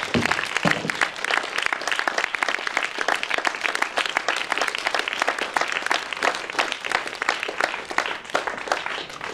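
Audience applauding: a dense, steady patter of many people's hand claps, easing a little near the end.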